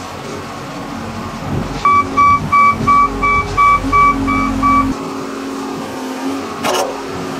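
Case 821E wheel loader's diesel engine running steadily, with an electronic warning beeper sounding eight quick high beeps, about three a second, from about two to five seconds in. A single sharp knock near the end.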